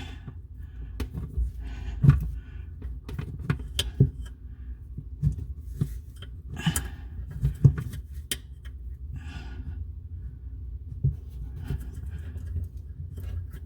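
Scattered small clicks and knocks of hands working a faucet supply hose and its fittings under a bathroom sink, with a few breaths between them.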